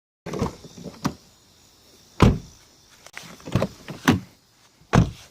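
Frameless doors of an Infiniti M sedan being shut: a series of solid thuds, the loudest about two seconds in and near the end, with lighter knocks between.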